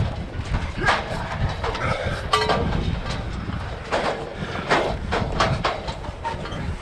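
Footfalls and jostling clatter from a runner's body-worn action camera, irregular knocks about every half second, over a steady low wind rumble on the microphone.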